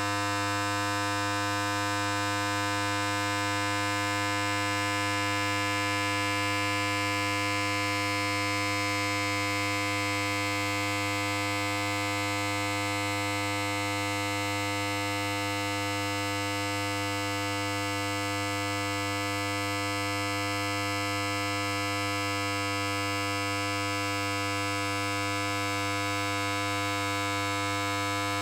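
Electric hair clipper running continuously with a steady, unchanging buzz.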